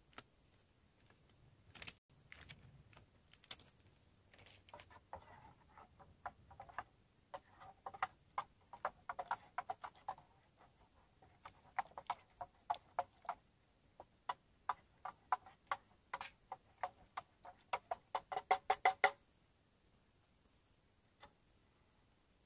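A spoon stirring in a metal camp cup, clinking against the inside of the cup a few times a second with a short ring. The strokes quicken into a rapid run, then stop abruptly after about 19 seconds.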